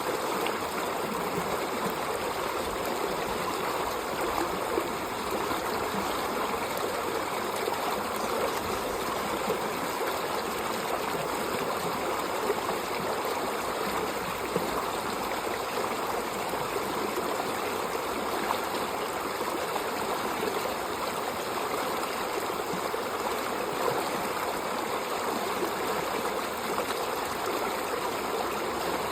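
Water of a stream flowing steadily, an even unbroken rush with small splashing flickers throughout.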